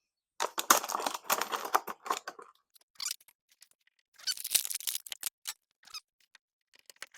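Packaging and paper being handled: bursts of rustling and crinkling with sharp clicks, in three spells, then a few scattered ticks.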